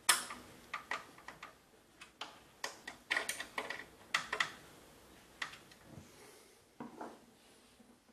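Thumbscrews being screwed into and tightened on a graphics card's metal bracket in a PC case's expansion slot: an irregular series of small metallic clicks and ticks.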